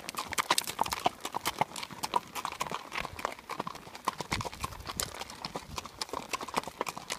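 A horse's hooves clip-clopping on a gravel trail, heard from the saddle: a steady run of sharp, uneven crunching hoof strikes.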